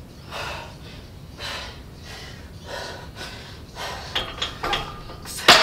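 A woman's sharp, forceful breaths about once a second while squatting a loaded barbell. Near the end comes a loud metallic clank with a brief ring as the barbell meets the squat rack.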